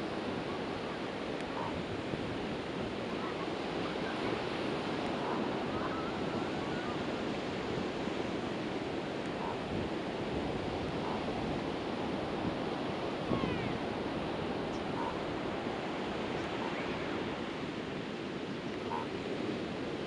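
Steady rush of ocean surf with wind.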